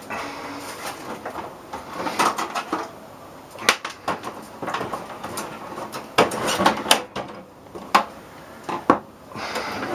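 Tools and loose parts scraping, clicking and knocking while a microwave oven is taken apart by hand, with a few sharp knocks in the second half.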